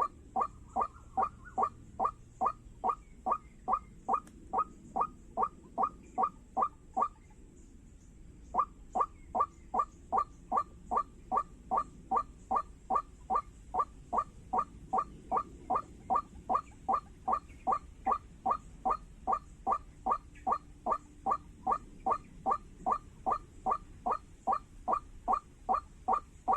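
White-breasted waterhen call: a monotonous series of identical short notes, about two a second, with one pause of about a second and a half some seven seconds in.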